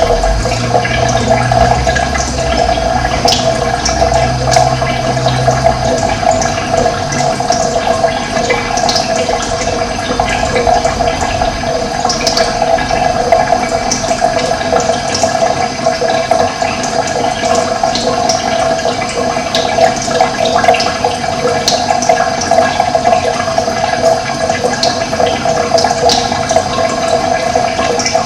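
Running water rushing steadily, with birds chirping in short calls scattered throughout.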